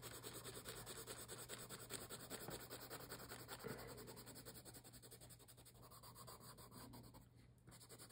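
Red colored pencil shading quickly back and forth on tracing paper: a faint, rapid scratching of strokes, with a brief pause near the end.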